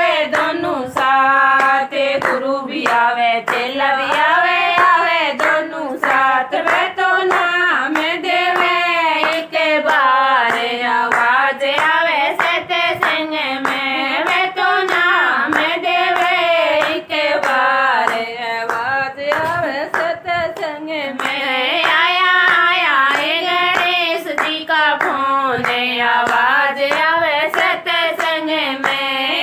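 A woman sings a Hindi devotional bhajan to Ganesh, unaccompanied apart from steady hand clapping that keeps the beat.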